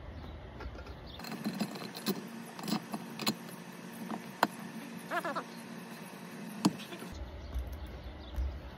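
Scattered metal clicks and taps from bolts being worked by hand through the mounting holes of a padded calf-machine frame, with two sharper clicks near the middle and end and a brief squeak about five seconds in.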